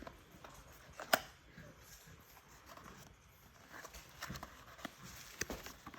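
A knife's retail box being opened and handled: one sharp click about a second in, then scattered light taps and faint rustling of the packaging.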